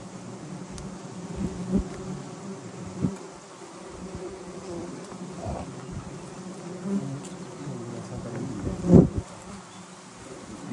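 Many honeybees buzzing steadily around a wild honeycomb, with a few short knocks, the loudest about nine seconds in.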